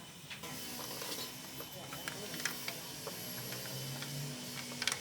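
Scattered light mechanical clicks and taps, a quick cluster of them near the end, over a faint steady hum, with faint voices in the background.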